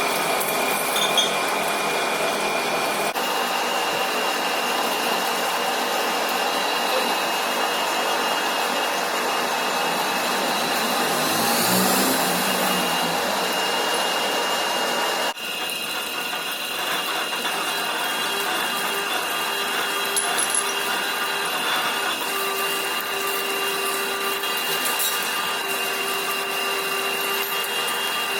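Lathe running through a turning operation: a steady mechanical noise with a high whine, changing abruptly twice.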